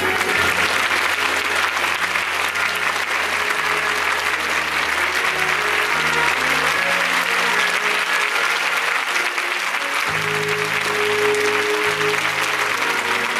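Theatre audience applauding steadily, with music playing underneath in held low notes that change every few seconds.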